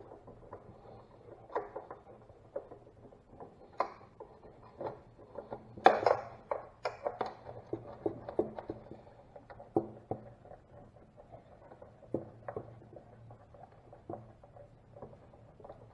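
Hand tools and parts being handled while taking apart a car dash assembly: irregular light clicks, taps and clatter, with a louder clatter about six seconds in, over a faint steady hum.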